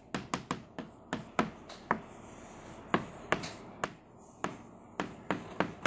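Chalk tapping and clicking against a blackboard while a formula is written: a run of sharp, uneven taps, a few a second, with a short pause about two seconds in.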